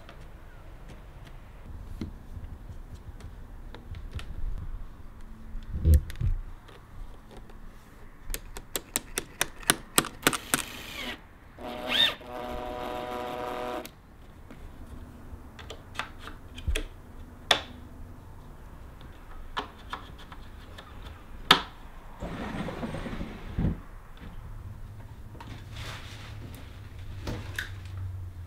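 Hand tools and fittings tapping and clicking while brush-pile carriers are fitted to a sash window frame, with a run of rapid clicks, then a Makita cordless drill driver running steadily for about two seconds as it drives a screw. Later comes a noisy stretch of about two seconds.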